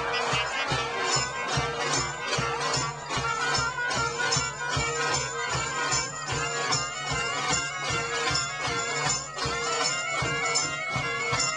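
Folk-style band music: a steady drone held under a moving melody, with a quick, regular drumbeat.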